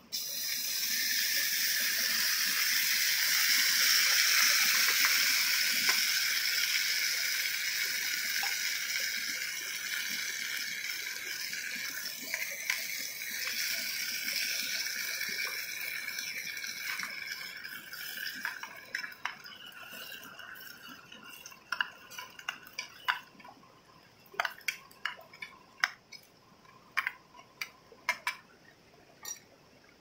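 Canned fish in tomato sauce hitting hot oil in an aluminium mess tin on a portable gas stove and sizzling, starting suddenly and slowly dying down. In the second half a utensil clicks and scrapes against the tin as it is stirred.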